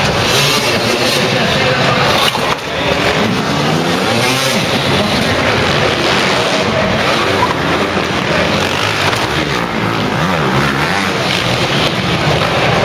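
Several motocross bike engines running at once, revving up and down as the riders take off from the ramps.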